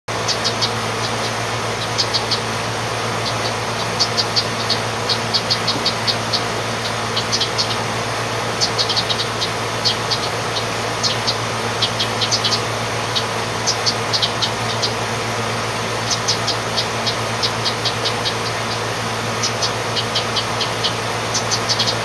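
Steady low hum of an air conditioner running close to the nest boxes. Over it come quick series of short, high chip notes from house wrens, several at a time every second or two.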